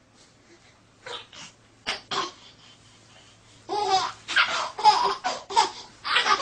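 A baby laughing: a few short laughs, then a little past halfway a long fit of rapid belly laughs, much louder, set off by the dog it is playing with.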